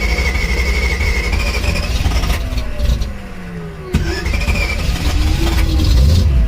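1979 MG being cranked on its starter motor: a high starter whine over the churning engine that stops about two seconds in, then a click and a second crank about four seconds in. The sound grows louder near the end as the engine begins to catch.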